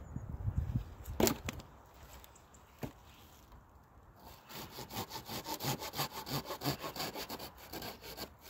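Pine firewood being worked: a sharp crack about a second in and a smaller one near three seconds, then a fast run of rasping strokes, about four a second, through the second half, like sawing wood.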